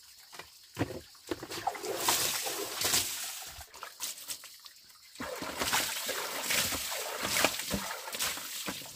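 Water splashing and sloshing in two stretches of a few seconds each, broken by a short lull, with scattered small knocks.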